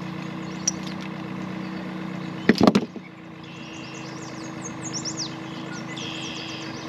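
Small birds chirping over a steady low hum, broken about two and a half seconds in by a short burst of sharp clattering knocks.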